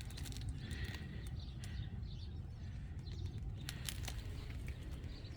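Birds chirping faintly over a steady low rumble, with a few light clicks about four seconds in.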